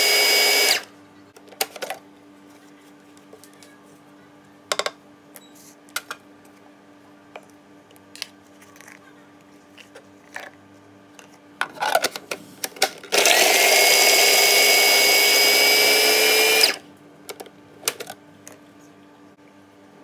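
Panasonic MK-5087M food processor motor chopping basil. It stops about a second in. After light clicks and knocks, it runs again for about three and a half seconds two-thirds of the way through, whining up in pitch as it spins up, now chopping basil with walnuts and garlic.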